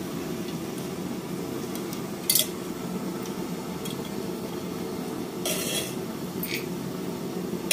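Steady roar of a kerosene pressure stove's burner heating an aluminium kadai of oil, broken by a few sharp metal clinks, the loudest about two seconds in.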